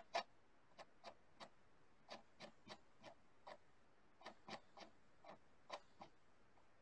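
Near silence with a string of faint, irregular clicks, about two a second.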